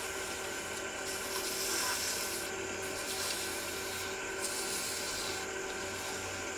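220-grit sandpaper rubbing on a small mahogany spindle spinning on a wood lathe: a soft hiss that swells and fades as the paper is pressed on, over the lathe motor's steady hum.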